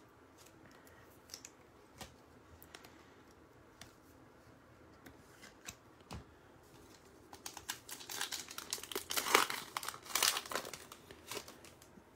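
Foil wrapper of a Prizm basketball retail card pack crinkling and tearing as it is ripped open, in a dense spell a little past halfway through. It follows a few faint scattered clicks from the wrapper being handled.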